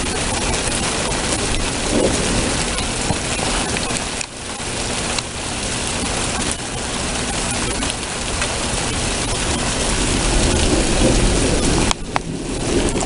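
Heavy rain pouring steadily during a thunderstorm, with low rumbles of thunder swelling a few times.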